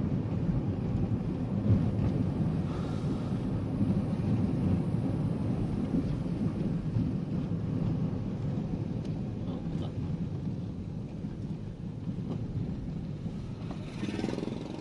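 Steady low road and engine rumble inside a moving car, heard through the cabin, easing off toward the end as the car slows.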